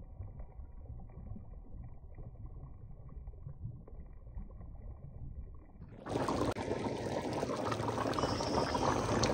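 Pot of oxtail stew with butter beans boiling hard and bubbling. It is faint and muffled at first, then about six seconds in it suddenly becomes much louder and clearer.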